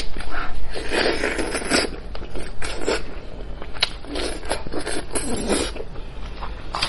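Close-miked mouth sounds of gnawing and sucking meat off the toothed jawbone of a cooked sheep head, in repeated scraping bursts about a second apart with a few sharp clicks.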